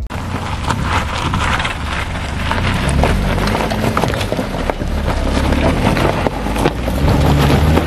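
Suzuki Ignis small SUV driving slowly up a rocky dirt track: a low engine rumble under the crunch and popping of loose stones beneath the tyres.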